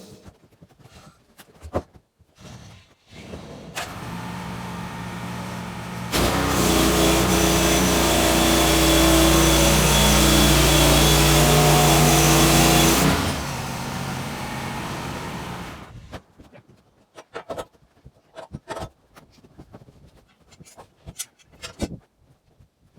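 An engine speeds up, runs loud and steady for about seven seconds, then drops back to a lower note and stops. Scattered knocks and clicks follow.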